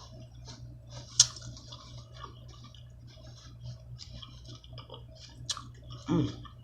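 Close-up eating sounds from a seafood boil: wet chewing and small mouth and sauce clicks, with a sharp click about a second in and another near the end, over a steady low hum.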